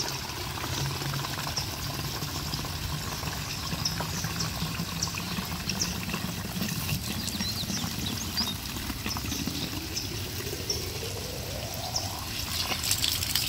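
Water from an expandable fabric garden hose pouring steadily into a bottle. Over the last few seconds a rising tone comes in as the bottle fills up.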